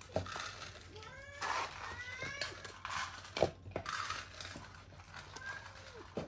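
Domestic cats meowing, with a couple of rising meows about two seconds in and a shorter call near the end, among a few sharp clicks and knocks.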